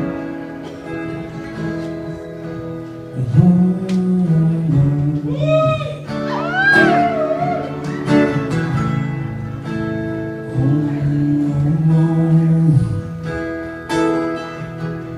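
Live acoustic band music: guitar chords over sustained bass notes, with a singer's wordless voice gliding up and down about halfway through.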